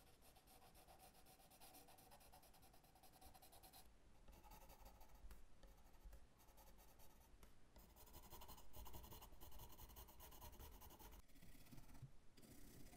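Faint scratching of a pencil drawing lines on a wooden handle blank, in several runs of strokes with short pauses between them.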